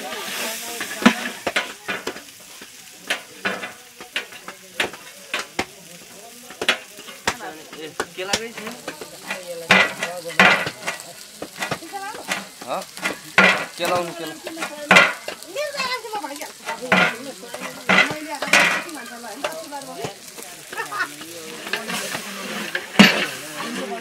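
A metal spoon stirring and scraping in a large metal pot of buffalo curry on the fire, with irregular clinks and knocks of metal on metal over a sizzle from the pot. A knife chops green chillies on a flat metal pan lid.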